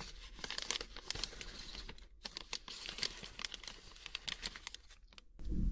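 Plastic snack packet of Calbee potato fries crinkling and rustling as it is handled, with many small, crisp crackles.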